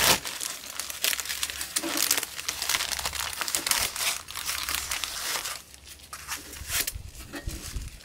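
Plastic film wrapper of a frozen pizza crinkling and rustling as it is pulled off by hand, with some tearing; the crinkling thins out about five and a half seconds in.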